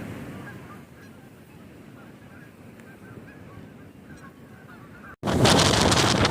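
A flock of geese honking repeatedly, faint and overlapping, over a low rumble. About five seconds in, it cuts abruptly to loud wind buffeting the microphone.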